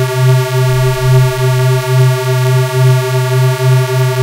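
Low, buzzy square-wave tone from FL Studio's 3x Osc synthesizer plugin, holding one steady note. It swells and dips about twice a second.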